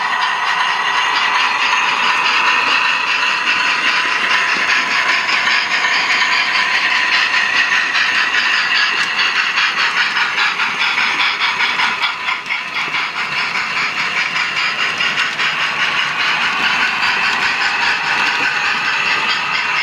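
Model trains running on the layout: a steady rattle of wheels on track with a hiss, dipping briefly about twelve seconds in.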